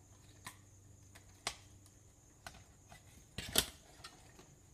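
A handful of short, sharp plastic clicks and taps, the loudest about three and a half seconds in: an OtterBox case being snapped around an iPhone.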